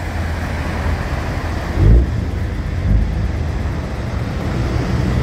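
Wind buffeting the microphone over the wash of surf breaking on a beach, with a heavy gust about two seconds in.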